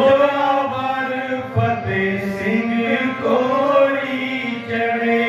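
Men singing a Sikh shabd kirtan in long, gliding melodic lines over a steady harmonium drone.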